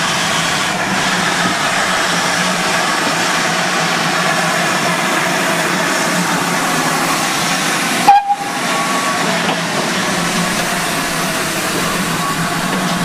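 Steam hissing steadily from a standing GWR Hall class 4-6-0 steam locomotive, with a low hum beneath. A single sudden loud knock about eight seconds in.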